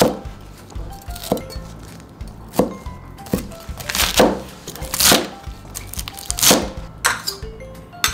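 Cleaver chopping spring onions and coriander on a cutting board: sharp, irregular strikes about once a second, over light background music.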